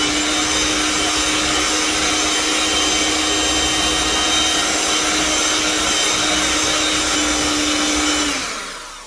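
Electric hand mixer running steadily at medium speed, its beaters whisking an egg into creamed butter and sugar. The motor winds down and stops near the end.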